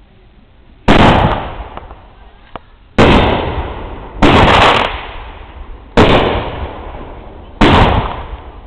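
Fireworks going off: five loud bangs a second or two apart, each followed by a rumbling echo that dies away.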